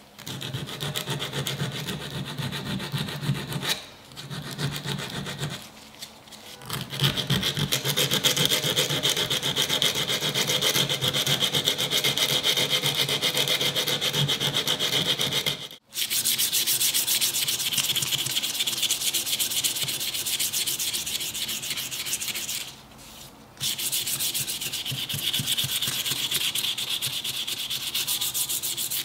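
Hand sanding on a Sugimoto kitchen knife: abrasive rubbed in quick back-and-forth strokes along the steel spine and heel to take off the patina and round the sharp edges. A steady scratchy rasping, with a few short pauses and a sudden break about halfway.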